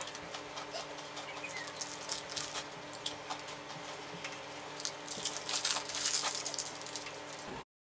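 Foil wrapper of a chocolate biscuit crinkling as it is handled, with biting and chewing, over a faint steady hum. The crinkling is densest a little after the middle and the sound cuts off suddenly near the end.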